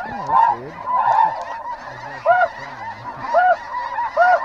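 Snow goose calls. Many honks overlap at first, then thin out about halfway through to separate high calls repeating about once a second.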